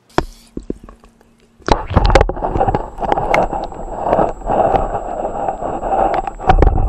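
Water rushing and gurgling around a submerged camera, with many sharp clicks and knocks. It starts loud about a second and a half in, after a few faint clicks.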